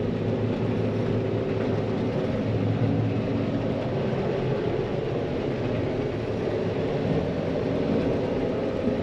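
John Deere 9500 combine running steadily while cutting wheat: an even engine and threshing drone with a low hum.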